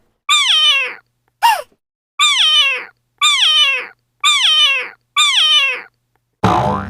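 A cat meowing over and over, about once a second: six high meows that each fall in pitch, the second one short. Music starts near the end.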